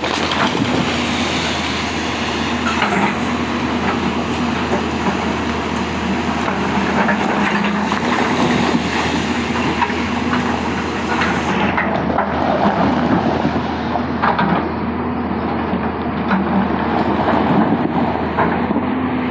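Hyundai hydraulic excavator's diesel engine running steadily under load, with a tone that swells and fades as the hydraulics work the boom. Scattered knocks and splashing come from the bucket digging at the riverbank and in the water.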